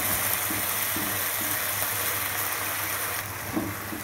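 Sauce with ginger and green chillies sizzling in a non-stick frying pan while a spatula stirs it, with a few faint scrapes of the spatula. The sizzle thins out about three seconds in.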